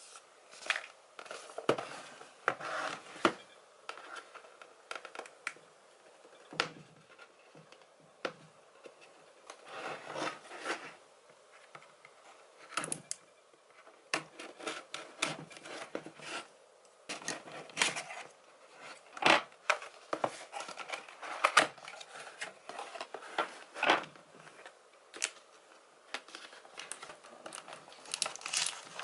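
Scissors snipping the seal of a cardboard box, with irregular clicks, scraping and rustling of cardboard as the box is handled and its lid opened.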